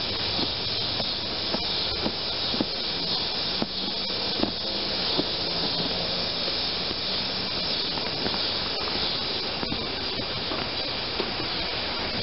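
Steady high hiss, with faint light taps and rubbing as hands press glued padding down onto a truck bench seat's foam base.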